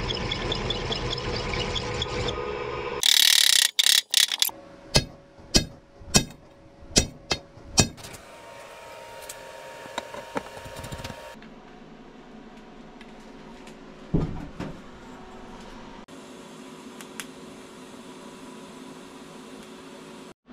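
A drill press running as it drills out a steel steering shaft's spline, then a loud harsh burst and a run of about seven sharp knocks, a steady hum, and near the end the faint steady hiss of welding on the shaft.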